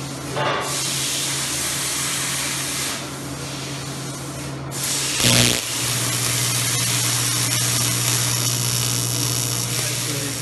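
TIG welding arc from a Lincoln Square Wave TIG 175 welder hissing and buzzing over a steady electrical hum as a metal pipe joint is welded. The arc stops about three seconds in and restarts with a brief loud burst a little after five seconds.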